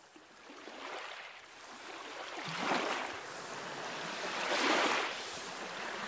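Small waves breaking and washing up on a sand beach, the surf swelling about three times as the sound fades in.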